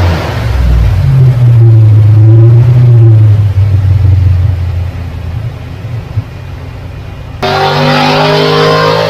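Chevy LT1 383 stroker small-block V8 running on an engine dyno. It gives a loud, deep rumble that swells over the first few seconds and then eases off, and about seven seconds in it changes abruptly to a brighter, busier engine note.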